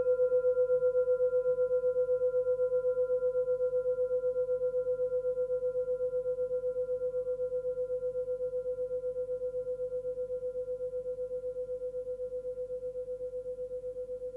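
Forged Tibetan singing bowl ringing on after a single strike, on one clear tone, most likely the set's highest bowl, note B, with fainter overtones above. The tone pulses quickly and evenly as it slowly fades.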